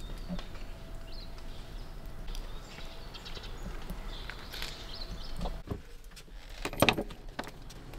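Quiet ambience with scattered light clicks and knocks, and a louder cluster of knocks about seven seconds in.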